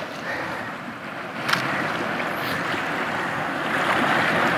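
Sea waves washing and surging over rocks and pebbles, swelling louder over the last couple of seconds, with one short sharp click about a second and a half in.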